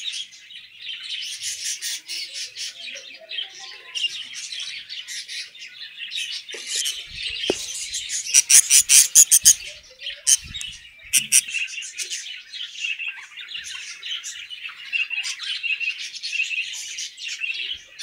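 Budgerigars chirping and chattering continuously, with a loud run of rapid, harsh squawks about eight seconds in. A few brief soft knocks.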